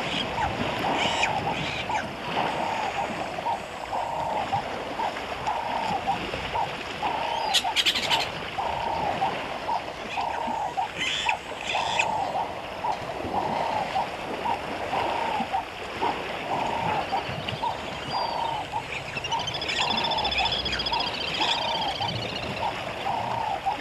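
Elephants splashing and sloshing in a waterhole, with a few short, sharper splashes. Under it, birds are calling, including a call repeated steadily about once a second and some chirps near the end.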